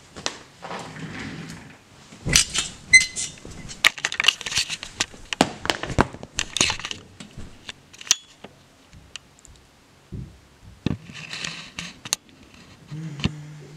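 Close handling noise as a person shifts about in a cramped space under a bed, holding a camera: rustling clothes, crinkling and many sharp clicks and knocks. A brief high-pitched tone sounds about three seconds in.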